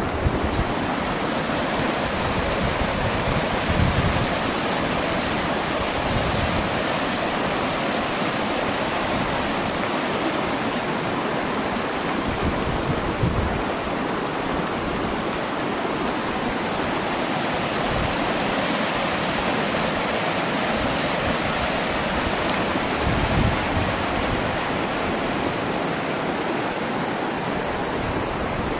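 Shallow stream rushing over rocks: a steady, even hiss of running water, with a few brief low bumps.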